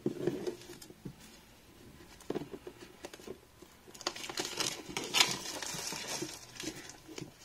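Clear plastic shrink wrap being torn and peeled off a cardboard game box: a few light taps and scrapes of handling at first, then a dense crinkling of the film from about four seconds in.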